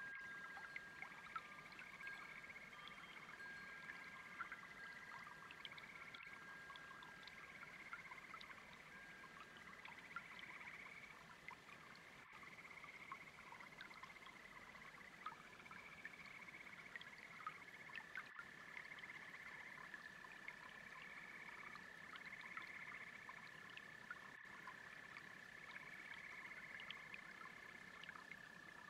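Faint frog chorus, the calls coming as repeated trills about a second long with short gaps, over a softly bubbling brook. A wind-chime tone dies away at the start.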